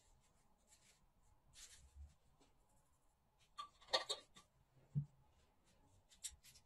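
Quiet handling sounds: a faint rustle of a small plastic bag as gunpowder is shaken out into a plastic jar, then a cluster of sharp clicks about four seconds in as the jar's red plastic cap is pressed on, a soft knock just after, and a few small clicks near the end.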